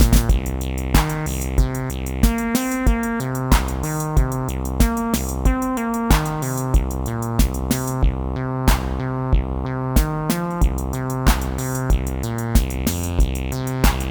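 Amiteque AR-110 analog drum synthesizer playing a looping electronic drum pattern, with kick-like hits about twice a second over a stepping synth note sequence. The high, hi-hat-like ticks drop out about eight seconds in and return about two seconds later.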